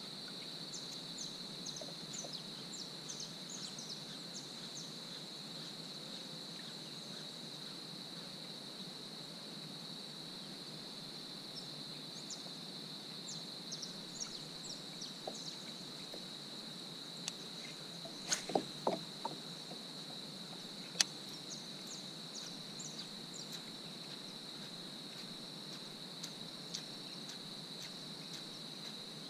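Steady high-pitched insect drone, with scattered short high chirps over it. A few knocks come about two-thirds of the way in, then a single sharp click.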